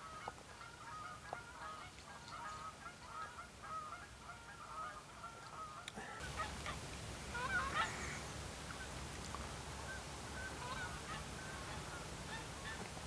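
A flock of geese honking, many short calls overlapping throughout. About six seconds in, a steady background hiss comes up beneath the calls.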